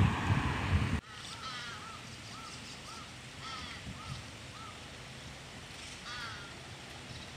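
A car driving past with wind rumbling on the microphone, cutting off abruptly about a second in. Then crows cawing in short repeated calls, a run of them over the next few seconds and another burst of caws near the end.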